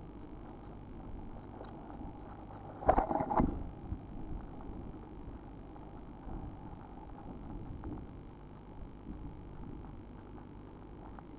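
Blue tit nestlings begging with rapid, very high-pitched calls, about four or five a second, thinning out near the end. A loud knock comes about three seconds in.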